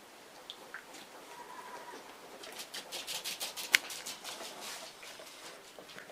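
A dog scrabbling and rustling on a blanket-covered sofa while playing with a toy: quick scratchy strokes start about two seconds in and keep going, with one sharp click near the middle.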